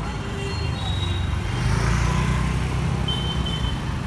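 Street traffic: a steady motor-vehicle rumble, with a vehicle passing close and loudest about two seconds in.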